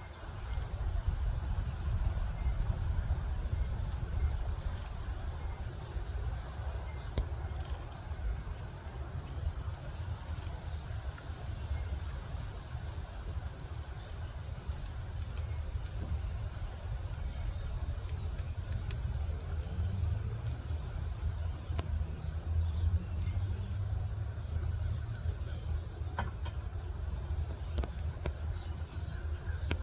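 Crickets trilling in one steady, unbroken high-pitched drone over a low rumble, with a few faint clicks.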